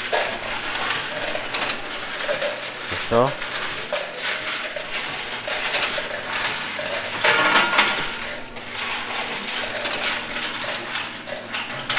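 Coins clattering and jingling without a break on a coin pusher machine that is running on its own, with a louder rush of clatter about seven seconds in.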